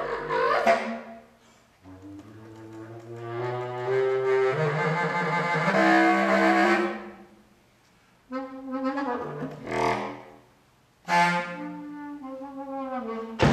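Solo contrabass clarinet playing separate long notes thick with overtones, with short silences between them; a brief gliding phrase opens, and a long middle note swells louder over about five seconds before breaking off.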